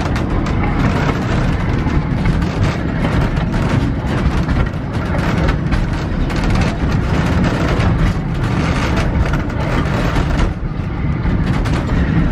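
Tourist train running along the track, heard from on board: a steady, loud rumble with continuous rattling and clatter.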